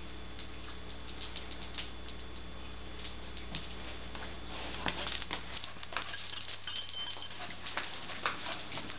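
A dog moving about, making light, irregular clicks and taps that grow busier about halfway through, with a brief faint high squeak a little later. A steady low hum underneath cuts off a little past halfway.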